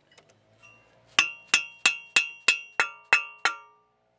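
Eight evenly spaced hammer taps, about three a second, driving a Delrin swing-arm bushing into the pivot tube of a steel mini bike frame; each tap leaves the frame ringing briefly.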